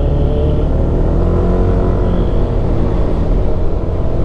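Motorcycle engine running at a steady cruise while riding, its note easing down slightly in the first second, over a heavy low rumble of wind on the microphone.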